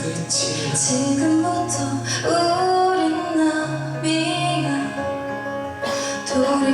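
Live band music with singing, from a concert performance of a song.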